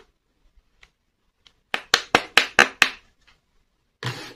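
A quick run of about seven sharp clicks of hard plastic toy parts knocking together, just over a second long, then near the end a rougher scraping as the plastic toy dollhouse slides across the table.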